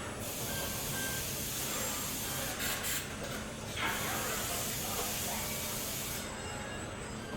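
Car-factory assembly-line ambience: a steady hiss over a low machine hum, the hiss thinning out about six seconds in.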